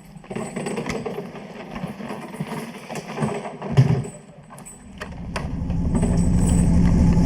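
Clicks, knocks and rustling of luggage being handled, with a thump near four seconds; then, about five seconds in, a vehicle engine idling comes in and grows louder, running steadily.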